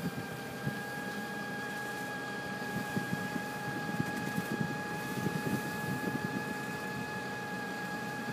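A steady hum from a running machine, a high tone holding one pitch throughout, over an irregular low rumble that swells in the middle.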